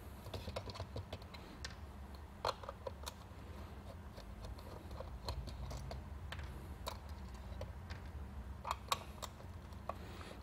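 Screwdriver backing small screws out of a plastic light housing: scattered light clicks and ticks from the bit and screws, with a few louder clicks about two and a half seconds in and near the end.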